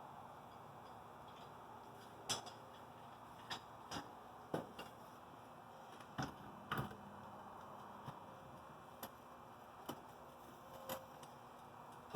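Scattered short clicks and knocks, about a dozen at uneven intervals over a low background hiss: a wrench and tools being handled while working a welded-on broken bolt loose.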